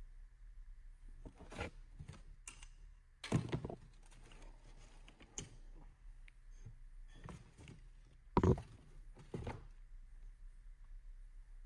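Handling noise from the Propel 701 pedal drive being lifted and set back in its cardboard box: a series of dull knocks and thunks against the cardboard. The loudest come about three seconds in and about eight and a half seconds in.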